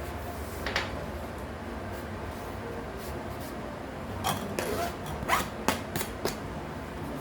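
Short knocks and clicks, one about a second in and a quick cluster of five or six in the second half, over a steady low background hum.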